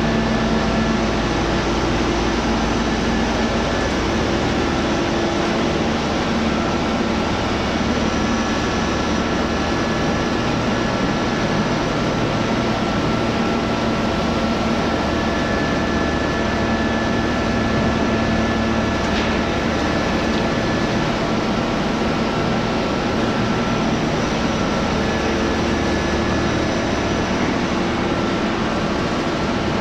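Machinery of a scrap washing machine recycling line running: a steady mechanical drone with several humming tones that fade in and out.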